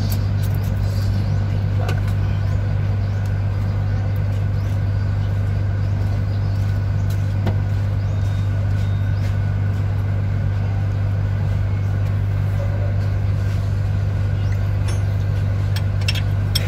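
A steady low machine drone, like a running motor or engine, with a few faint metallic clicks from a wrench and screwdriver working the rocker-arm adjusting screws of a Cummins diesel during valve lash adjustment.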